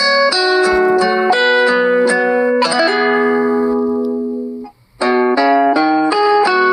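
Phone ringtone: a quick melody of short plucked-string notes ending on a held chord that dies away, then after a short gap the melody starts over about five seconds in.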